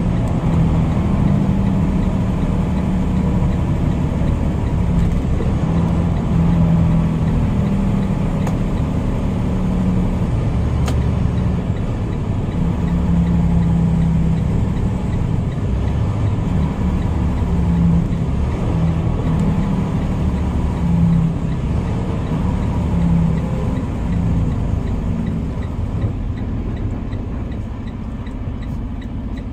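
Tractor-trailer's diesel engine and road noise heard from inside the cab while driving at highway speed: a steady low rumble with hiss. It falls somewhat quieter near the end.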